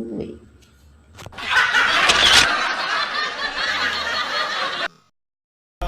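A burst of laughter, loud and dense, starting about a second in and lasting roughly three and a half seconds before cutting off suddenly.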